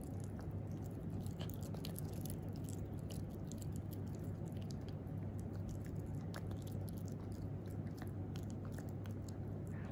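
Italian Greyhound puppy chewing a dog dental chew (etiquette gum), with irregular crunching clicks and mouth sounds over a steady low hum.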